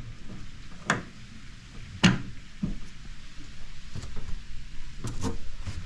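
Several separate knocks and clunks from storage lids and fittings on a boat's deck being handled, about six in all. The loudest comes about two seconds in, and two come close together near the end.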